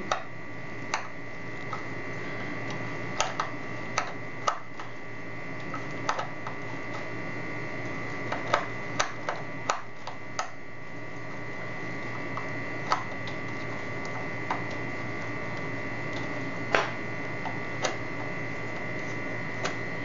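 Screwdriver backing out the steel faceplate screw of a mortise lock: irregular sharp metallic clicks and ticks as the tip turns in the screw head, several in the first half and fewer later.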